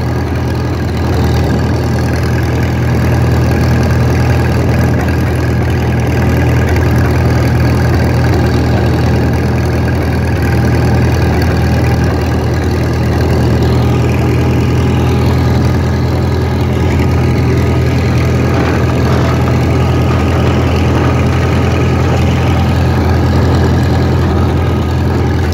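Vintage International Harvester tractor's four-cylinder engine running steadily at an even speed while driving.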